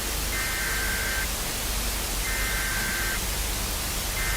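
Steady broadcast static hiss with a two-tone electronic beep, about a second long, sounding three times about two seconds apart: a simulated dead-air signal that the emergency alert system is down.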